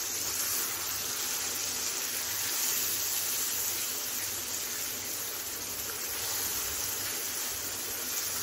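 Chicken pieces coated in spice powders sizzling steadily in hot oil in a pan as they are stirred and fried with the masala.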